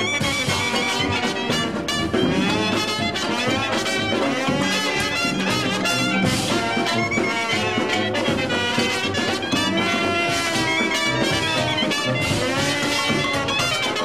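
Instrumental big-band music led by brass horns, playing without a break.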